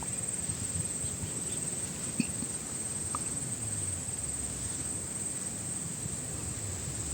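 Steady, high-pitched insect trill from the surrounding fields, over a low background haze with a few faint clicks.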